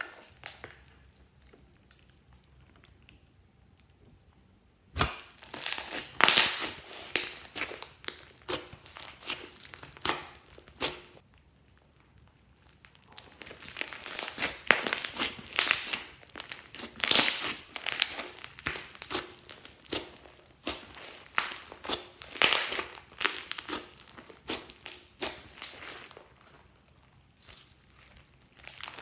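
Slime being squeezed and worked by hand, making runs of crackling, crinkling squishes. It is near-quiet at first; the crackling starts about five seconds in, pauses briefly around the middle, then carries on.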